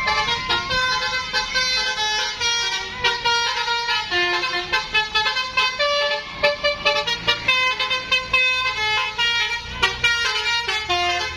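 Bus telolet horn, a multi-trumpet electric horn, playing a fast tune of short, changing notes over and over, with a low rumble rising underneath in the second half.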